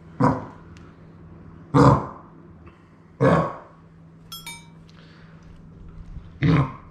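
Five-month-old yellow Labrador puppy coughing from kennel cough, an infectious throat infection: four short coughs, the first three a second and a half apart and the last after a longer pause.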